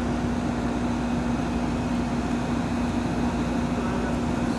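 1986 Friedrich Quietmaster 19,000 BTU air conditioner running on high cool: a steady hum with one constant low tone over an even rush of noise.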